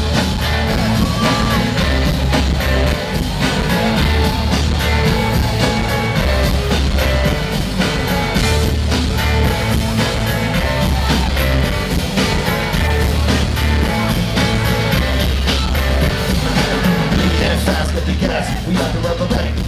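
Live rock band playing, electric guitar over bass and drums, with the bass repeating a short low figure about every two seconds.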